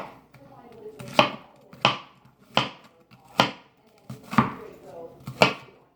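Knife chopping on a cutting board: about six separate, sharp chops, roughly one a second.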